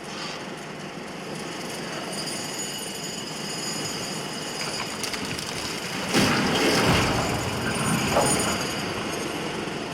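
Demolition of a wall: an engine runs steadily under a noisy rumble. About six seconds in, a loud crash of the wall coming down and debris falling, with a second loud crash about two seconds later.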